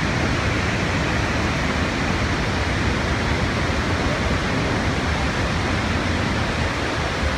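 Niagara's Horseshoe Falls: a steady, unbroken rush of water pouring over the brink.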